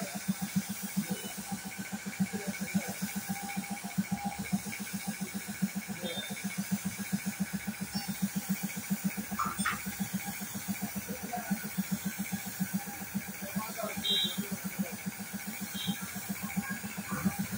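Air compressor running with a rapid, even pulsing beat, supplying a gravity-feed paint spray gun that hisses faintly as it sprays paint onto a car panel.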